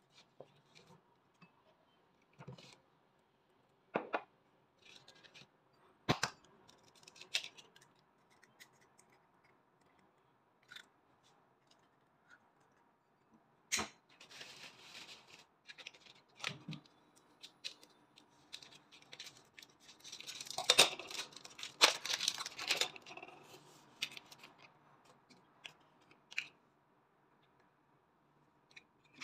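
Food-prep handling sounds: scattered sharp taps and knocks on the countertop and bowl, among them an egg cracked into the bowl, with spells of crisp rustling and clicking, the loudest about two-thirds of the way through.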